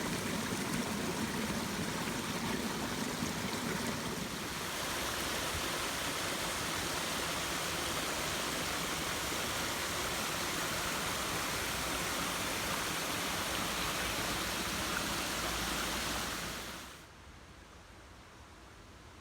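Small brook flowing steadily, a continuous rush of water, running higher than normal after recent rain. The sound shifts in character about four seconds in and falls away sharply near the end.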